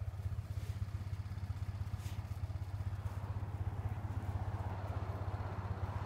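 Four-wheeler (ATV) engine running steadily with a low, rapidly pulsing hum.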